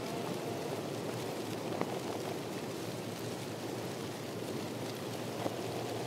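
Steady, even water noise, with a couple of faint clicks, one about two seconds in and one near the end.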